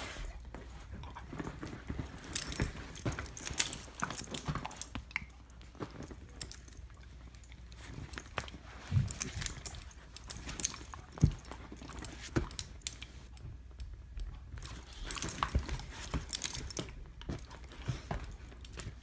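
A Vizsla play-biting and mouthing a person's hand, its metal collar tag jingling in several short spells, among scattered soft clicks and snaps of its jaws.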